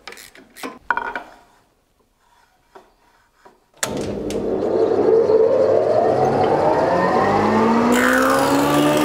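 Old thickness planer switched on about four seconds in: its motor and cutterhead start suddenly and spin up, the whine rising steadily in pitch. Before that, a few sharp clicks.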